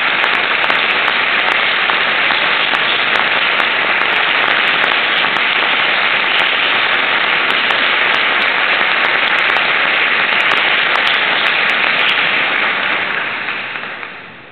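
Audience applauding in a dense, steady patter that dies away over the last couple of seconds.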